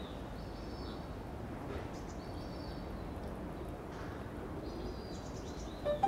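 Outdoor ambience with a bird repeating a short, high chirping phrase several times, over a steady background hiss. Piano music comes in right at the end.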